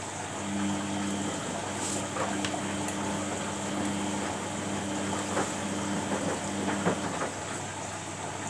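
Samsung WF80F5E0W4W front-loading washing machine turning its drum in the wash, with water and laundry inside: a steady motor hum starts about half a second in and stops about seven seconds in, over water sloshing and small knocks of the load falling.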